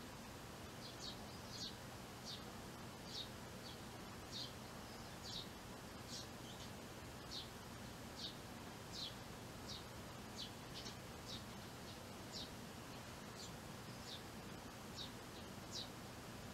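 Eurasian tree sparrow giving short high chirps over and over, about one or two a second, over a faint steady background noise.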